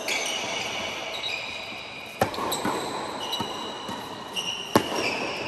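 Tennis ball struck by racquets during a doubles rally on an indoor hard court: three sharp hits about two and a half seconds apart, each ringing briefly in the hall.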